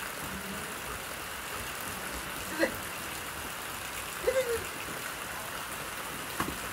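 Steady rain falling, with a sharp knock about two and a half seconds in and another near the end, and a brief voice-like sound around four seconds in.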